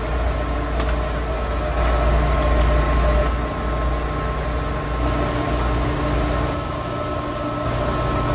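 Steady drone of running plant-room machinery: a low rumble with a few constant tones held above it.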